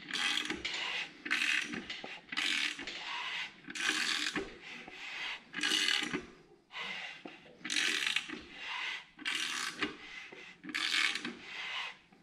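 Honda D16Z6 short block, with new pistons and rods, being turned over by hand in a test spin: a rhythmic rubbing and clicking stroke about once a second as the pistons and rings slide in the bores. It turns without binding.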